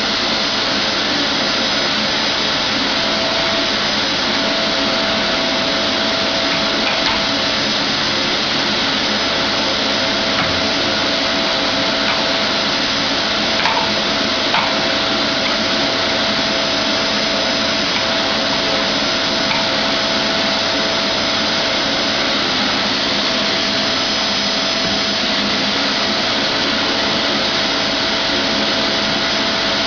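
Vacuum cleaner running steadily, its motor noise carrying a constant whine, with a couple of faint knocks about halfway through.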